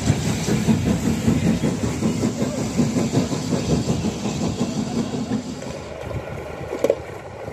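Hunslet Austerity saddle-tank steam locomotive and its wagons rolling away along the track, wheels rumbling and clacking over the rails with a steady low hum underneath. About six seconds in it gives way to a quieter outdoor background with one brief knock.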